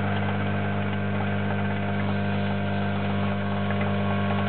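Home espresso machine's pump humming steadily while it pulls a double shot, with espresso just beginning to drip from the portafilter spouts.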